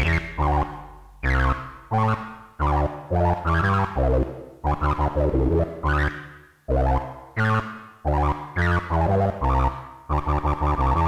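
Electronic synth groove: a sequenced Moog Werkstatt bass line over drum-machine beats. The Werkstatt's filter is modulated by several LFOs summed together, so the brightness of the notes opens and closes in repeated sweeps.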